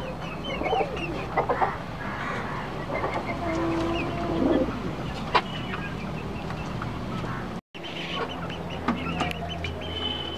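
Domestic chickens, hens and a rooster, clucking at roost, with many short, scattered calls. The sound cuts out for an instant about three-quarters of the way through.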